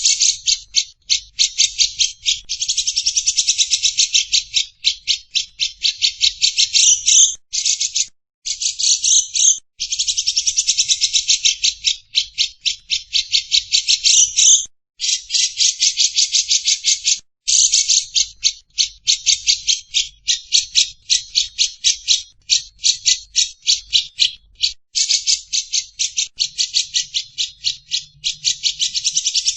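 A bird's fast chattering trill: long runs of rapid, sharp repeated notes, broken by brief pauses.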